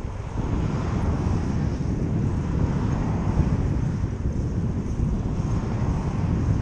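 Wind rushing over the microphone of a moving bicycle, with the steady noise of motor traffic on the road.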